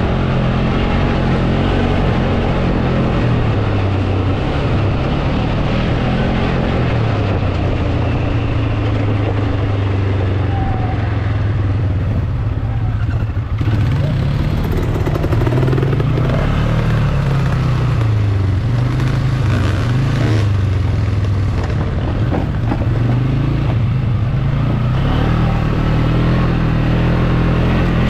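A motor vehicle's engine running continuously, its pitch rising and falling again and again as the throttle changes.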